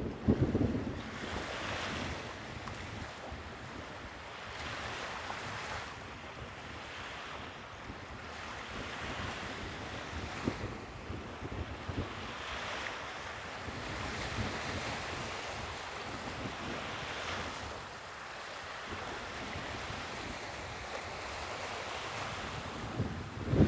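Sea waves washing in, swelling and fading every few seconds. Wind buffets the microphone with low rumbling gusts near the start and again at the end.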